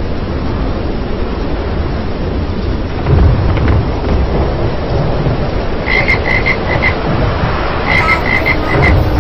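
Steady rain with a loud low thunder rumble about three seconds in, then frogs croaking in two quick runs of about five croaks each, near the end.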